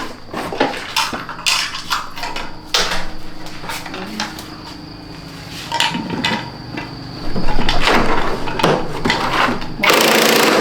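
Metal tools and small scooter parts clinking and clattering as the Attila scooter is taken apart, with a louder stretch of scraping and rattling in the second half.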